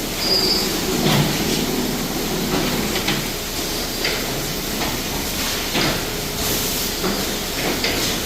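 Automatic weighing and bagging machine running: a steady mechanical noise with a sharp clack or air hiss every one to two seconds.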